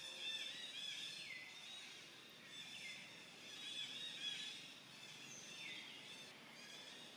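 Faint chorus of birds calling, with calls that slide down in pitch three times.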